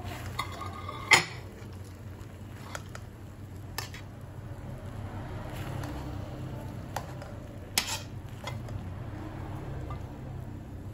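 Perforated metal spoon scraping and knocking against a wide pan while turning cooked rice, with a sharp clink about a second in, a second loud one near the end and a few softer taps between. A low steady hum runs underneath.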